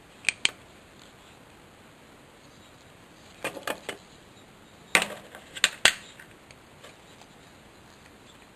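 Sharp plastic and metal clicks from a Chevrolet Suburban's dimmer switch and its small parts being handled as the switch is reassembled: a pair of clicks near the start, then two short clusters of clicks a few seconds later.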